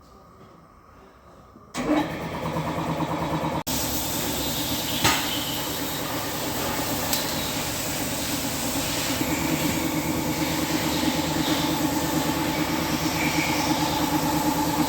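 Hyundai Solaris engine, a car with a reported engine knock, starting about two seconds in and then running steadily.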